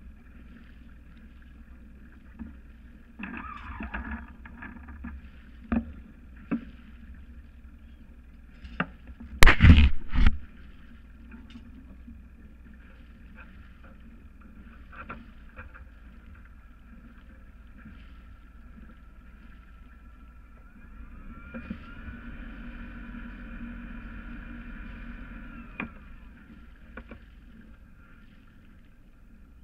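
Hanse 355 sailboat's engine running steadily at low speed while coming in to moor, rising in pitch and getting louder for about four seconds about two-thirds of the way through before dropping back. A loud double knock sounds about ten seconds in.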